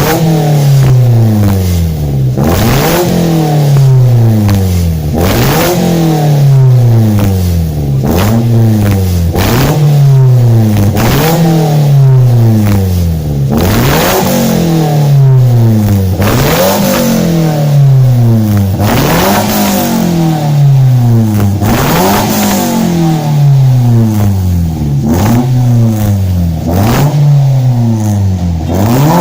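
Toyota Yaris engine blipped repeatedly through a newly fitted Alpino S02 aftermarket exhaust, each rev rising quickly and falling back, about every second and a half.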